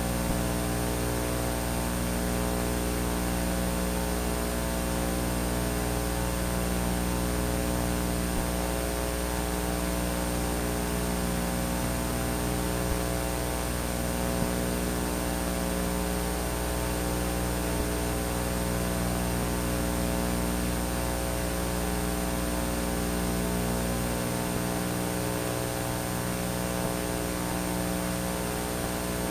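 Steady electrical mains hum and buzz, many even overtones over a constant hiss. The deepest part of the hum drops out about 24 seconds in.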